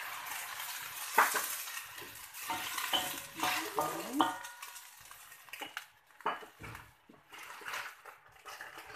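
Wooden spatula stirring in a metal wok of hot water with sliced onion and carrot, knocking against the pan a few times in the first half. The hot liquid sizzles and hisses, fading over the first few seconds.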